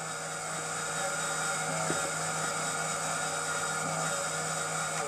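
Electrically driven model helicopter rotor head, with its main rotor and geared tip rotors spinning: a steady whine over a low hum. The low hum stops at the very end and the whine starts to fade.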